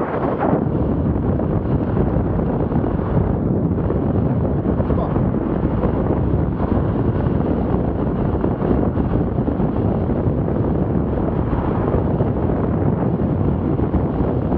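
Steady wind rush buffeting the microphone of a bicycle-mounted camera riding at about 25 mph.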